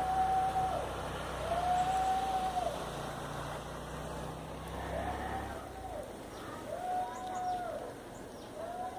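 A loud hooting tone sounds about five times, each blast about a second long, rising at the start and sagging at the end, every one and a half to two seconds, like a horn or siren signal. A low rumble underneath stops about six seconds in.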